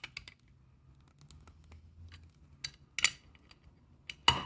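Adjustable wrench clicking against a stainless steel valve body as a hex fitting is tightened: a few scattered metallic clicks, the loudest about three seconds in and just before the end.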